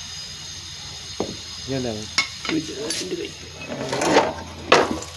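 Metal tools and motorcycle parts being handled: scattered clinks and scrapes, then a sharp, loud clank near the end.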